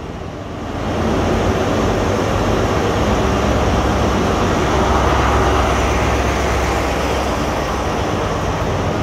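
A Class 43 HST power car's diesel engine pulling away under power as it passes close by, a loud steady engine note that swells about a second in. Near the end the train's Mark 3 coaches roll past.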